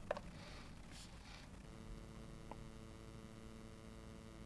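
Almost quiet: a faint click as the handheld radio transmitter is handled and its bind button pressed, then a faint steady electronic hum of several pitches that sets in about a second and a half in.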